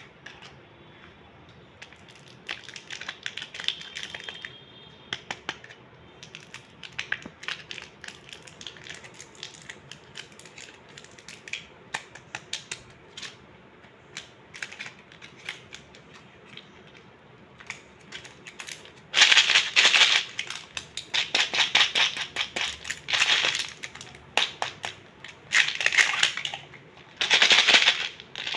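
Crinkling and crackling of plastic candy packaging being handled, with many small clicks; it turns much louder and busier about two-thirds of the way in, in several long bursts.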